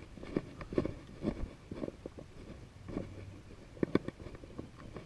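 Footsteps on asphalt, an irregular series of soft scuffing steps about two a second, as a person walks a dog on a leash.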